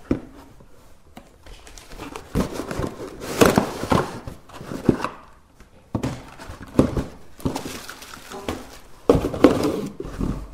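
Cardboard box and packaging being handled during unpacking: irregular rustling and crinkling with light knocks as the cardboard insert and parts are lifted out and set down on the table.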